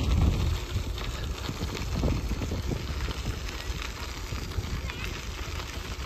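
Bicycle tyres crackling over a fine-gravel path while riding, with wind rumbling on the microphone.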